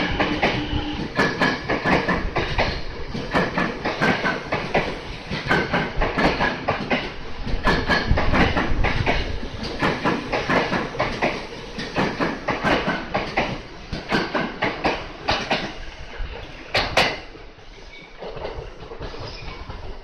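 Tokyo Metro Fukutoshin Line commuter train running past a station platform, its wheels clattering over the rail joints in a dense string of clicks over a rumble. The clatter ends with a last loud click as the final car passes, about 17 seconds in, leaving a fainter rumble.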